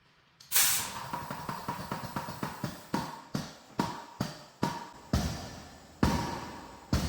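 A pump filling a tractor tire starts with a sudden hiss about half a second in. It then runs with sharp repeated clacking strokes, quick at first and settling to about one a second.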